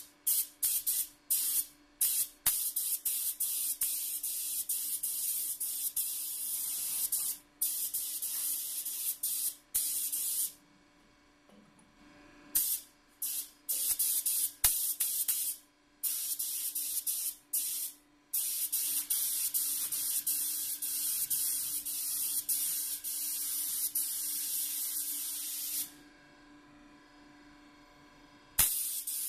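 DeVilbiss GTi Pro compressed-air spray gun hissing as it sprays blue two-pack base coat. The trigger is pulled in several short bursts at first, then held for long passes of several seconds, with two-second breaks around the middle and near the end.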